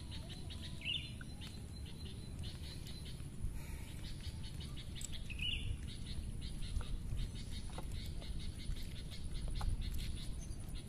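Outdoor birdsong: a fast, evenly repeated run of high chirps that keeps going, with a short, higher call coming back every few seconds, over a steady low rumble.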